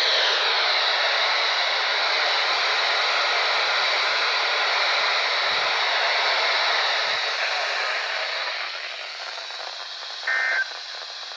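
NOAA weather radio receiver giving out loud static hiss, which eases off about eight seconds in. Near the end comes a short burst of the warbling two-tone EAS SAME header data that opens a new alert.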